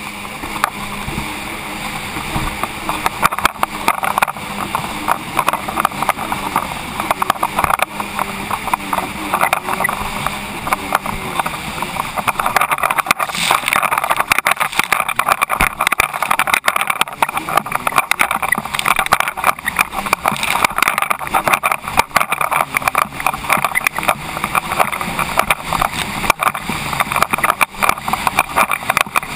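Jet ski running at speed over choppy water: the engine's drone mixed with a constant rush of water and spray against the hull. The rush grows louder about halfway through.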